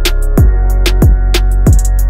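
Background music with a steady electronic beat: deep kick drums that drop in pitch about twice a second over a held bass, with crisp hi-hat ticks.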